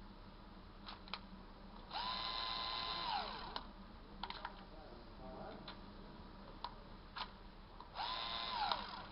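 Small cordless screwdriver with a revolving bit magazine, its motor run briefly twice: each time it whines up to a steady pitch, holds it (about a second the first time, shorter the second), then winds down. Between the runs come a few sharp clicks from the tool's mechanism.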